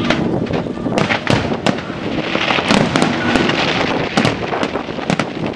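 Aerial fireworks going off: many sharp bangs at irregular intervals over a dense crackle.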